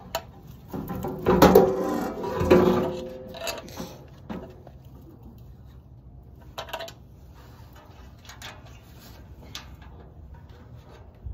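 Sheet-metal barbecue pit parts clanking and scraping as they are fitted together, loudest and busiest in the first few seconds. After that come a few isolated light metal knocks.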